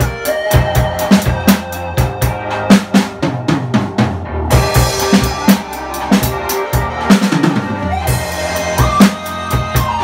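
Acoustic drum kit played in a steady groove: bass drum, snare and Meinl cymbals, over a backing track with held pitched notes.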